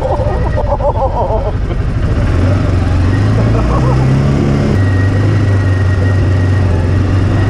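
CFMOTO side-by-side engine running steadily while driving a dirt trail, its note dropping about four and a half seconds in. A voice is heard briefly in the first second and a half.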